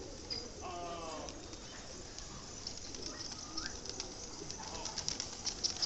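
Flock of domestic pigeons on a rooftop, cooing, with a run of quick sharp clicks and flutters from the birds that grows denser toward the end.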